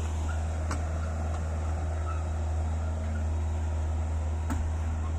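Truck engine idling, a steady low hum, with two faint clicks, one near the start and one near the end.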